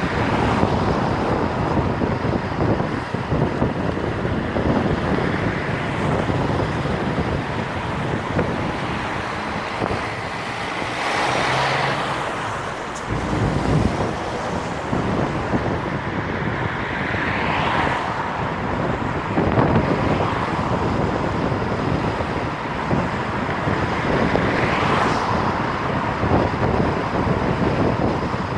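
Road and tyre noise from a moving car, with wind buffeting the microphone. The noise swells and fades three times.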